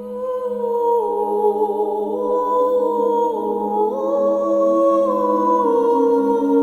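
Background music: slow, hum-like sustained tones that shift pitch in steps over a steady low drone.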